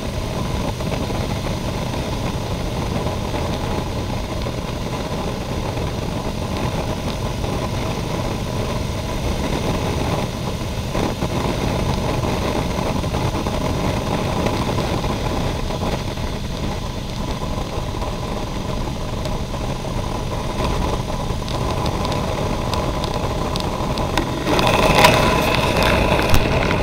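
Motorcycle engine running steadily at highway cruising speed with wind rushing over the bike-mounted camera. It gets louder for a couple of seconds near the end.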